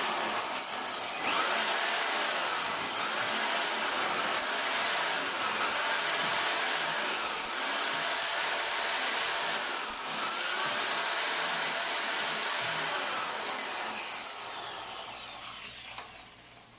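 A power tool running continuously under load, tapering off and stopping near the end.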